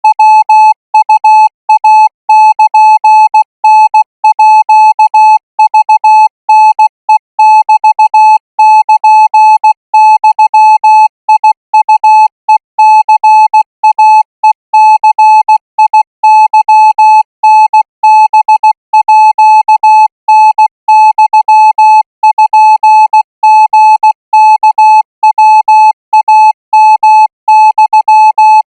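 Thai Morse code practice signal sent at 20 words per minute: a single steady beep a little under 1 kHz, keyed on and off in short dots and longer dashes with brief gaps between characters.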